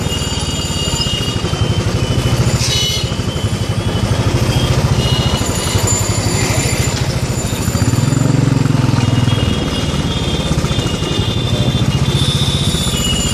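Motorbike engine running steadily under the rider with a low pulse, louder for a moment about eight seconds in. Horns honk on and off in the traffic around it.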